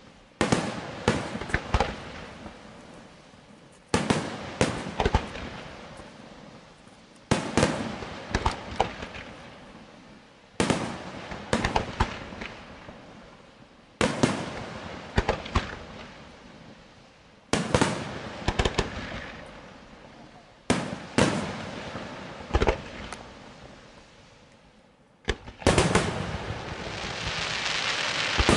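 Aerial firework shells bursting in volleys: a cluster of sharp bangs about every three seconds, each fading out before the next. Near the end a dense, continuous crackle builds up.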